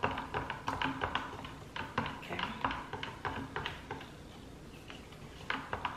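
A stick stirring thickening hand-casting mold mix in a plastic cup, clicking and scraping against the cup's sides in quick irregular taps, with a quieter stretch about four seconds in.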